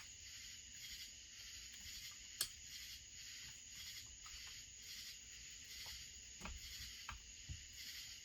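Quiet hand-tool work: a few faint clicks as a mounting screw on a Husqvarna 1100CD chainsaw is tightened, over a steady high hiss, with the sharpest click about two and a half seconds in.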